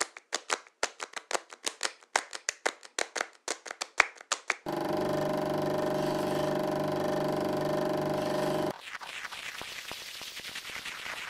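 Sound-design effects cut one after another. First comes a rapid, uneven run of sharp clicks, about five or six a second. About four and a half seconds in, a steady hum of several held tones starts, and about nine seconds in it gives way to a rough scraping, rubbing noise.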